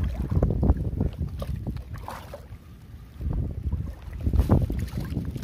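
Wind buffeting the microphone as a low, uneven rumble, with river water lapping and sloshing close by; it eases briefly about halfway through.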